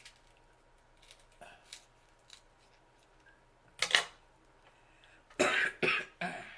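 Eating sounds from a seafood boil: faint scattered clicks, one sharp loud crack about four seconds in, then a few louder bursts of mouth and shell noise near the end.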